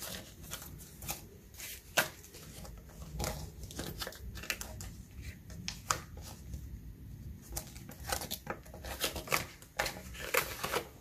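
Paper banknotes rustling and a clear plastic zippered cash pouch in a ring binder crinkling as they are handled, with many short clicks and snaps; the sharpest snap comes about two seconds in.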